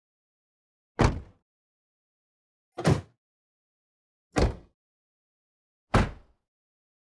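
Car doors shut from outside the car, four separate closes about a second and a half apart. Each is a short, solid slam with a brief tail.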